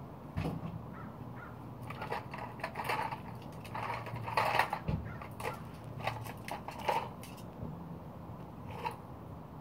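Plastic toy cement mixer truck scraping and clattering on concrete as a grey squirrel shoves it about and tips it over: irregular knocks and rattles, busiest in the middle.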